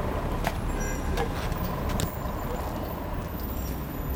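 City street ambience: a steady low traffic rumble with a few scattered sharp knocks.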